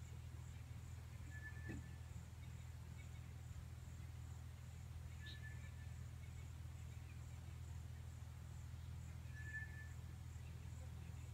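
Quiet outdoor ambience: a steady low hum, a short, high whistled call three times about four seconds apart, and faint, rapid, regular ticking throughout.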